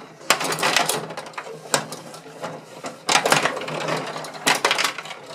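Gretzky rod-hockey table game in play: rapid clacking and rattling of the steel player rods and plastic players, coming in several flurries.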